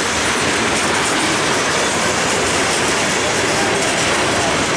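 Freight train's tank cars and covered hoppers rolling past close by: a steady, loud noise of steel wheels running on the rails.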